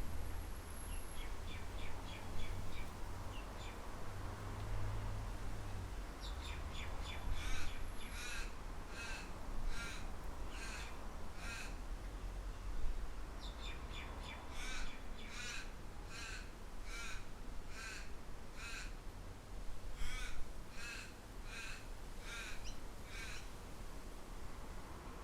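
A bird calling over and over in runs of evenly spaced calls, about one and a half a second, in three or four bouts, over a low, steady rumble of wind.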